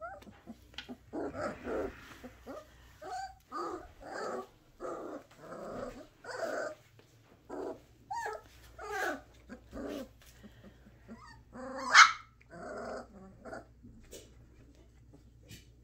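Three-week-old Bordoodle puppies growling and giving small barks as they play, a string of short, high little growls, with one sharp bark about twelve seconds in that is the loudest. The puppies are still just learning to growl.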